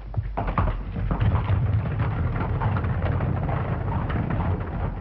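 Horse-drawn carriage pulling away: hooves clip-clopping over a steady low rumble of the rolling wheels, growing louder about a second in.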